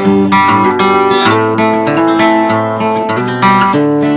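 Acoustic guitar music, a run of plucked notes and chords.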